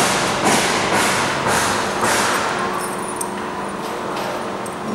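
X-ray baggage scanner's conveyor belt running with a steady motor hum while a bag is carried through. Over the hum comes a run of rough thumping, scraping strokes about twice a second that fade away after about three seconds.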